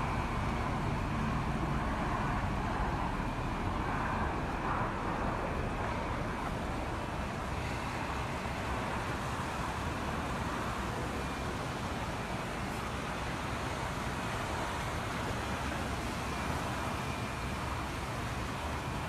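Steady traffic noise from passing vehicles, with a low rumble and no distinct single event.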